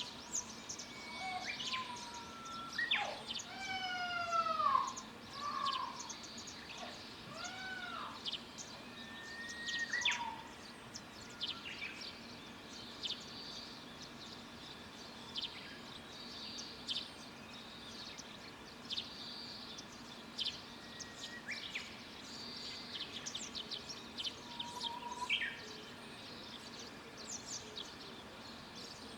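Wild birds calling and singing: several overlapping sweeping, arched whistled calls in the first ten seconds, then scattered short high chirps, over a faint steady low hum.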